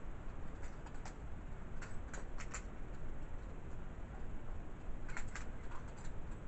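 Butterfly knife (balisong) clicking and clacking as it is flipped through a trick, with the handles and blade knocking together in irregular clusters of sharp clicks, grouped about two seconds in and again around five seconds, over a steady background hiss.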